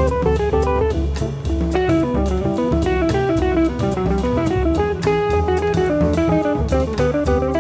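Jazz band recording: a guitar plays a quick line of single notes over bass and a steady drum-kit beat.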